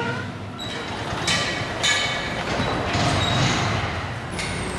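Several short bursts of hissing, about half a second to a second apart, over a steady background noise.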